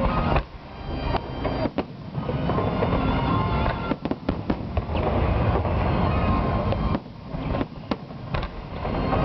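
Aerial fireworks shells bursting in a display: several sharp bangs over a continuous crackle and rumble, with music playing underneath.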